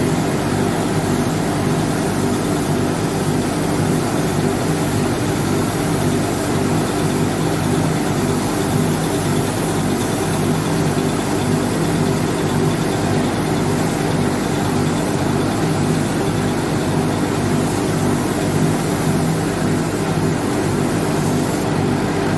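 Steady motor hum under a constant hiss, running evenly without pause, like a small electric machine working continuously.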